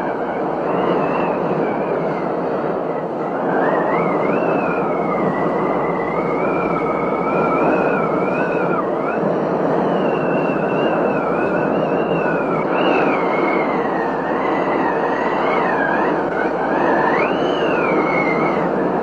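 Steady rush of a heavy rainstorm, with a high whistling tone wavering slowly up and down in pitch over it.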